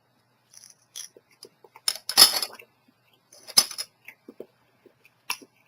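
Eating a chocolate-covered cicada: scattered small clicks and crunches, with two louder crunchy bursts about two and three and a half seconds in.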